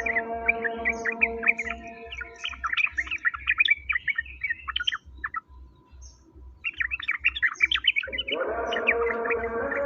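Small songbirds chirping and twittering in rapid bursts, as played in a masteran bird-song tutoring recording; the chirping breaks off for about a second and a half midway. A low steady drone sits beneath, fading early and swelling back in about eight seconds in.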